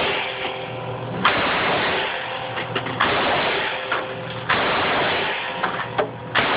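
Belt-fed machine gun firing in short bursts, about four bursts in quick succession, each starting abruptly and lasting a second or so.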